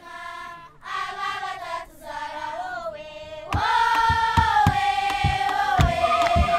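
A choir of high voices singing together. They start unaccompanied, and about three and a half seconds in they are joined by a steady, louder beat of thumps and hand claps.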